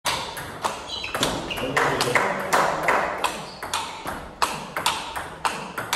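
Table tennis rally: the plastic ball clicking off the rubber-faced bats and bouncing on the table in a quick, irregular back-and-forth rhythm of sharp ticks, echoing in a large hall.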